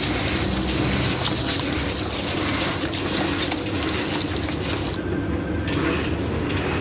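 Wet, squelching sloshing of a hand churning thick tikka masala marinade paste in a large plastic tub; it stops about five seconds in. A steady low hum runs underneath.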